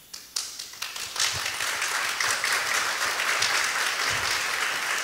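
Audience applause. A few scattered claps come first, then the room joins in about a second in and the clapping keeps on.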